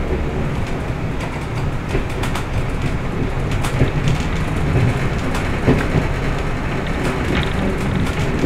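Class 122 'Bubble Car' diesel railcar on the move: a steady diesel drone under the rumble of wheels on rails, with irregular clicks and knocks scattered through.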